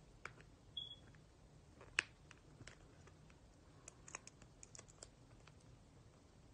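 Faint clicks and taps of small plastic and glass pieces being handled with long fingernails while unpacking a phone and its accessories, with one sharper click about two seconds in, a quick run of small ticks a couple of seconds later, and a brief high chirp near the first second.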